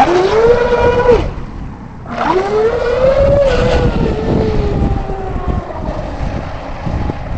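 Brushless electric motor of a GFreak Bud Cat RC catamaran on a 6S LiPo whining under throttle: the pitch climbs and holds for about a second, cuts off, then climbs again about two seconds in and slowly falls away.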